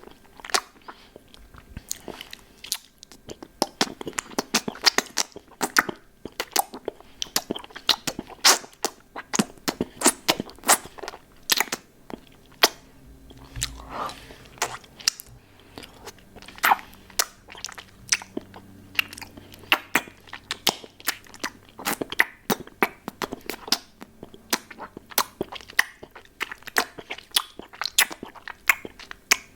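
Close-miked mouth sounds of a hard lollipop being licked and sucked: a fast, irregular stream of sharp wet clicks and smacks.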